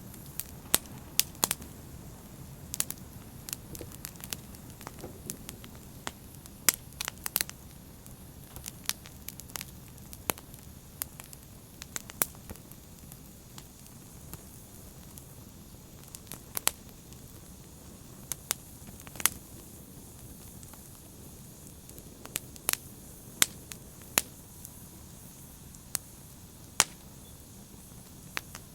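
An open fire crackling: irregular sharp pops and snaps, several in quick clusters, over a steady low rumble of burning.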